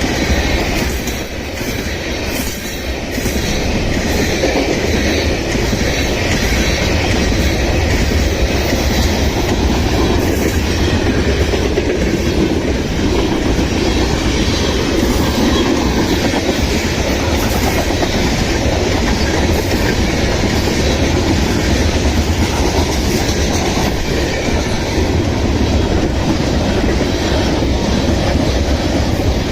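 Bulk ethanol freight train's rail cars rolling past, a steady loud wheel rumble with clickety-clack over the rail joints.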